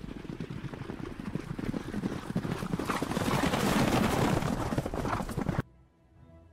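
Sound effect of horses' hoofbeats: a quick, dense clatter of two horses ridden off at a run. It grows louder, then cuts off abruptly near the end.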